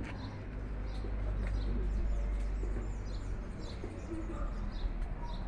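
Birds chirping, short high calls repeating about twice a second, some sliding down in pitch, over a steady low rumble.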